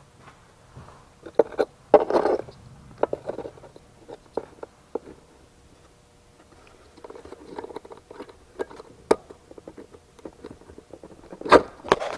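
Small plastic clicks and handling noises as a new H7 halogen headlight bulb is fitted by hand into its plastic bulb holder; irregular taps and rattles, loudest just before the end.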